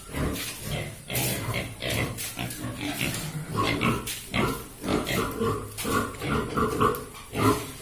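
Pigs in a pen grunting, with a run of short, repeated grunt-squeals about two a second in the second half.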